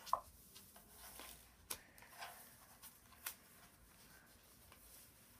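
A sheet of paper being folded and creased by hand: faint rustling with three short, sharp clicks about a second and a half apart.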